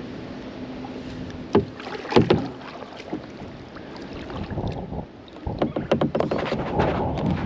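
Kayak paddle strokes in river water: splashes and sharp water clicks, a few separate ones early, then a busier flurry of splashing over the last two seconds.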